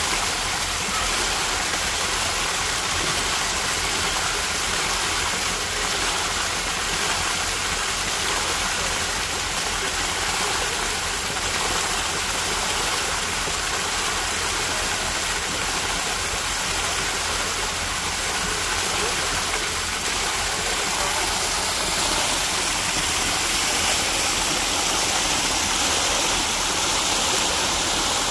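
Small waterfall: a stream of water pouring over a rock ledge, heard close as a steady rushing splash.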